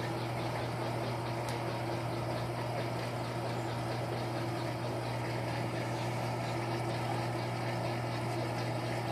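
LT13B washing machine running its wash cycle: a steady motor hum with a churning noise that holds even throughout.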